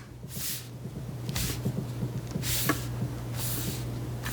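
Handling noise as a laptop's plastic bottom cover is pressed and fitted back onto the chassis: short rustling scrapes about a second apart with a few faint clicks, over a steady low electrical hum.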